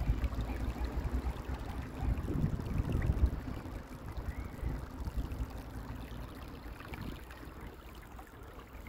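Wind buffeting the microphone in uneven gusts, strongest in the first few seconds and easing later, over the wash of choppy river water against the embankment.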